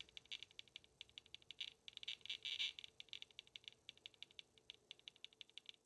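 Faint, rapid irregular ticking, about ten clicks a second, from an EMF meter's audible signal, with a faint steady hum underneath.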